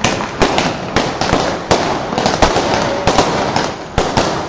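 A multi-shot aerial shell cake firing continuously: a rapid run of sharp bangs as shells launch and burst, about three a second, with crackling between them.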